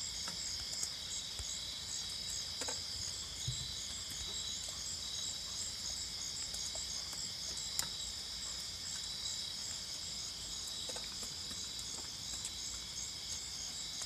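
Crickets and other night insects chirping in steady, high-pitched pulsing trains, with a few faint scattered ticks.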